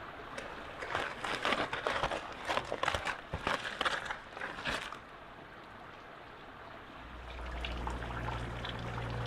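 Liquid pouring and splashing for about five seconds, then a steady low hum starting near the end.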